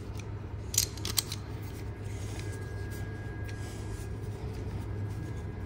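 A few light clicks from handling tools and brake line, about a second in, over a steady low hum.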